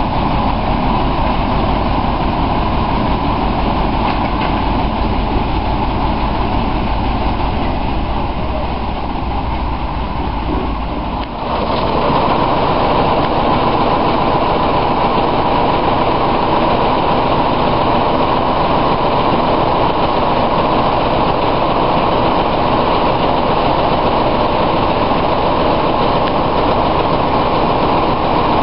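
Class 07 diesel shunter's Paxman six-cylinder engine running with a steady low rumble. About eleven seconds in the sound changes suddenly to a louder, steadier running noise, heard from on board as the loco moves along the line.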